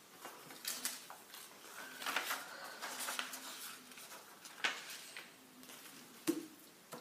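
Sheets of paper being handled and pressed on a table: intermittent crinkling and rustling, with a couple of sharp taps in the second half.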